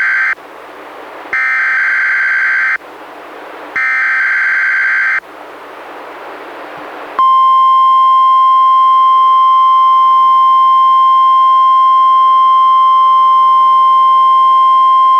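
NOAA Weather Radio Required Weekly Test as heard through a weather radio receiver. It begins with the end of one SAME digital header burst and two more screeching data bursts of about a second and a half each, separated by radio hiss. About seven seconds in, the steady 1050 Hz warning alarm tone begins and holds without change.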